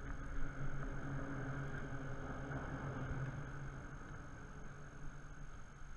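An engine running steadily with a low even hum, easing off a little near the end.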